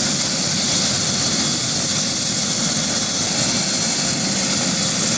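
Turbine helicopter running on the ground after landing, a loud steady noise of engine and rotor with a thin high whine over it.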